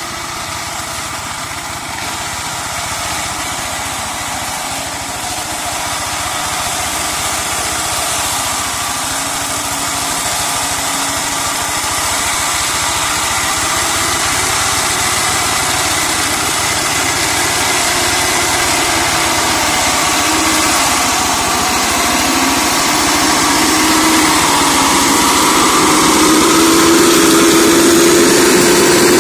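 Walk-behind two-wheel hand tractor's single-cylinder diesel engine running steadily while it mows undergrowth, growing steadily louder as it draws near.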